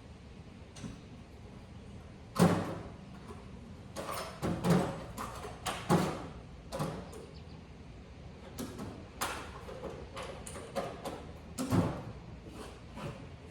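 Irregular knocks and clunks, a dozen or so spread unevenly, the loudest about two and a half seconds in, over a low steady background.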